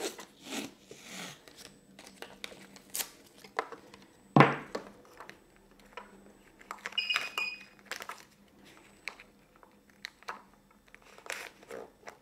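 Painter's tape being pulled off the roll and pressed around an electric unicycle's handle: scattered crackles and tearing sounds with handling clicks. A single loud knock about four seconds in, and a short high beep around seven seconds in.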